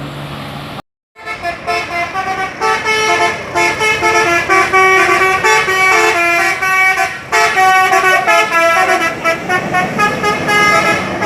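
A bus's 'telolet basuri' musical air horn plays a quick tune of short notes that step between pitches, several tones sounding at once. It starts about a second in, after a brief break from steady road and engine noise with a low hum.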